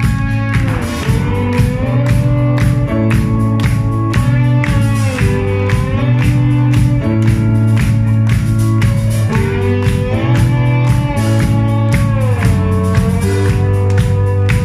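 Live band playing a song's instrumental intro: guitar chords with sliding notes over a steady beat.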